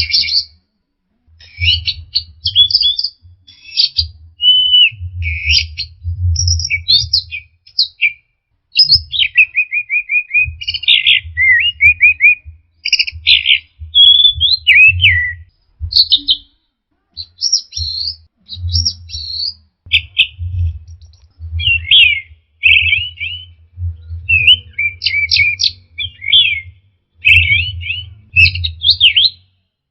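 Orange-headed thrush singing a rapid, varied song of trills, slurred whistles and chattering phrases, broken by short pauses. A low rumble rises and falls along with the phrases.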